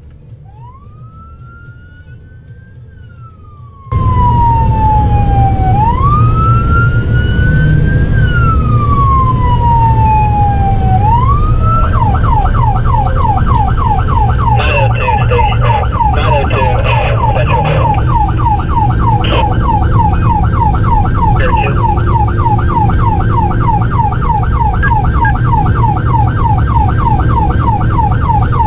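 Emergency vehicle's electronic siren in slow rising and falling wail sweeps, fainter for the first few seconds and then loud, switching to a fast yelp about twelve seconds in, over the vehicle's engine and road rumble.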